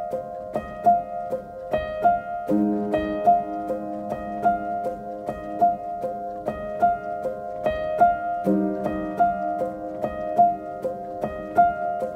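Background music with a steady pattern of short, bright struck notes over a lower chord, which changes about two and a half seconds in and again about eight and a half seconds in.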